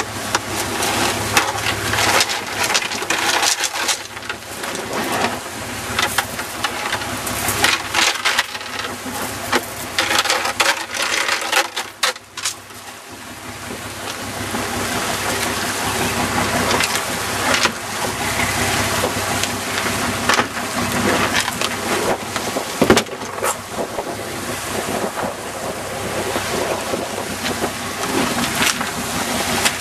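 Fishing boat's engine running with water churning and splashing alongside, and scattered knocks and rattles of gear. The sound drops briefly about twelve seconds in.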